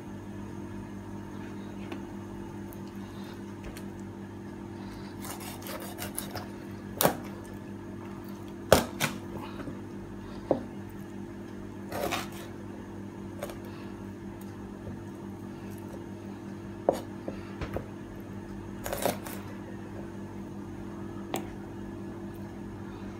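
A chef's knife cutting up a raw whole chicken on a cutting board: irregular sharp knocks and clicks as the blade strikes the board and cuts through the joints, over a steady low hum.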